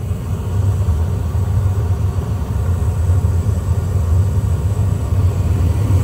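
American Standard gas furnace firing: the inducer motor running and the burners lit, a steady low rumble. The indoor blower has not yet started; it is still in its start-up delay.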